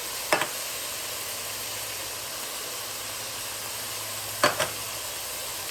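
Drained, cooked ground beef sizzling steadily in a hot pan as the chili is started, with two short sharp clicks, one just after the start and one near the end.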